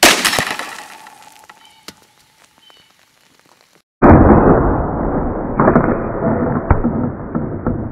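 .22 rifle shot into a row of full soda cans, the cans bursting and soda spattering and dripping as the sound dies away over about a second. About four seconds in, a slowed-down, muffled replay of the burst and spray takes over.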